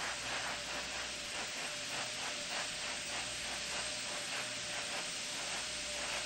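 Steady hiss with faint regular pulses a few times a second and a faint steady tone underneath.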